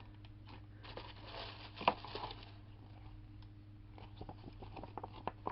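Crinkling rustle of candy-kit packaging being handled, with a sharp click about two seconds in, then light scattered taps and clicks of small plastic pieces being moved.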